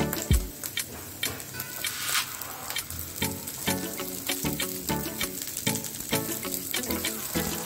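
Scrambled egg and diced carrots sizzling in oil in a frying pan. About two seconds in, a handful of green peas is tipped into the pan and the sizzle briefly swells.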